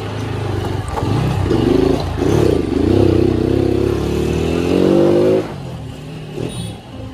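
Motorcycle engine pulling under throttle, its pitch wavering and then rising steadily before the throttle is shut off about five seconds in.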